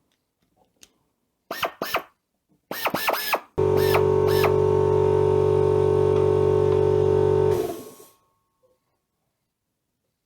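Compressed-air hand tool's air motor triggered in a few short blips, each winding down in pitch, then held on to run free at full speed for about four seconds with a steady whine before being released.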